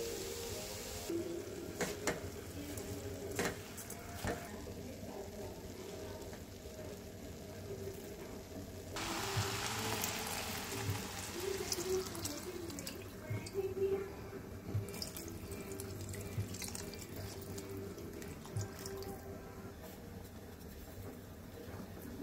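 A spatula stirs and taps against a non-stick pan of frying soya chunks and vegetables, with a few sharp knocks. About nine seconds in, water is poured into the hot pan for roughly three seconds with a rushing splash.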